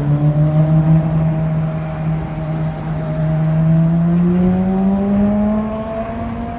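A road vehicle's engine pulling away, its note rising slowly and steadily in pitch over several seconds, over the low rumble of passing traffic.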